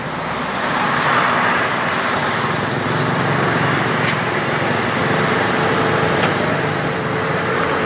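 Steady engine and road noise of a moving car.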